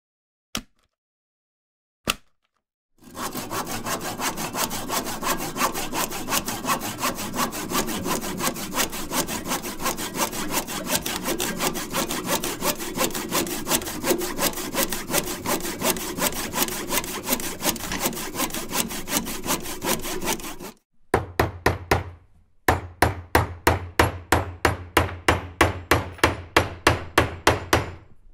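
Sawing sound: rhythmic back-and-forth rasping strokes, preceded by a few isolated clicks. The strokes run densely, stop briefly about two-thirds of the way through, then resume as more separate strokes at about three a second.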